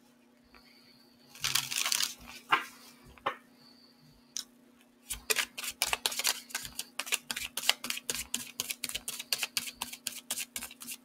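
A deck of oracle cards being shuffled by hand: a short rustle of handling about a second in, then from about halfway a quick, even run of card flicks, about five or six a second.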